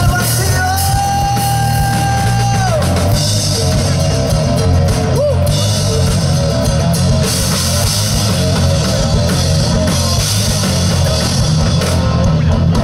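Live rock band playing an instrumental passage on electric guitar, bass and drum kit. A long held high note starts about half a second in and drops away near the three-second mark.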